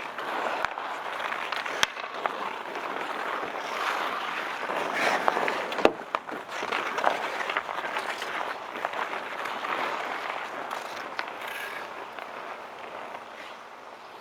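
Outdoor ice hockey game ambience: skates scraping on the ice with sharp clacks of sticks and puck over a steady wash of crowd noise, fading out over the last few seconds.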